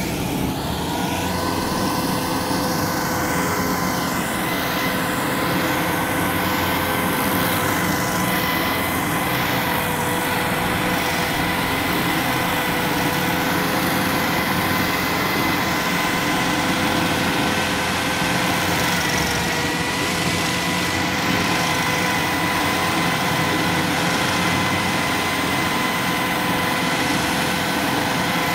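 Tracked stump grinder running at full speed with its cutter wheel grinding into a stump. A steady high whine sits over constant grinding noise, dipping slightly in pitch near the end.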